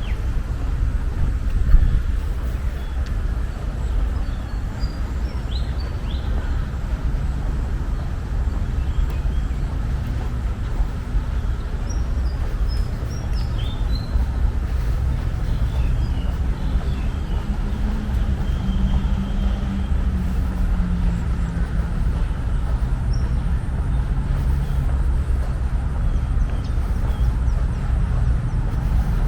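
Steady low rumble of city traffic, with a few faint bird chirps now and then and a brief knock about two seconds in.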